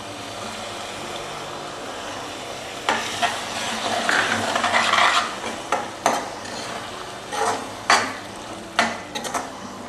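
Spice masala sizzling in oil in a pan, loudest from about three to five seconds in, then a spoon stirring it and clinking against the pan again and again.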